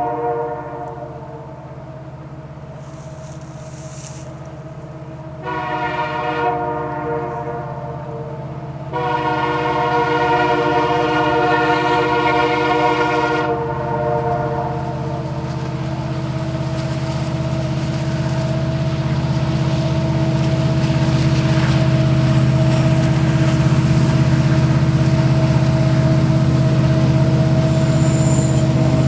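CN SD75I diesel locomotives sounding a multi-note chime horn: a blast ending about a second in, then two long blasts starting about five and nine seconds in. Under the horn, the locomotives' diesel engines drone steadily and grow louder as the train approaches, with wheels on the rails.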